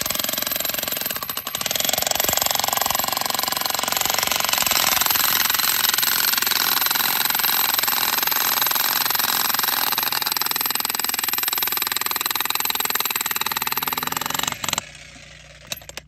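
Jackhammer hammering into rock, loud and continuous, stopping abruptly near the end.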